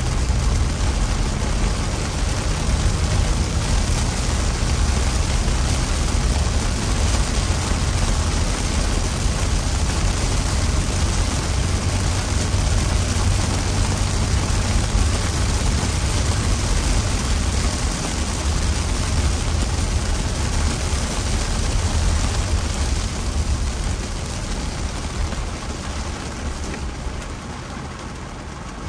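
Heavy rain hitting a car's windshield and roof, heard inside the cabin over a deep rumble of tyres on the wet road. The noise eases off near the end as the car slows.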